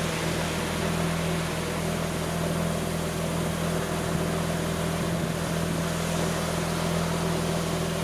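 Mazda RX-8's two-rotor Wankel rotary engine idling steadily on its first run after a rebuild.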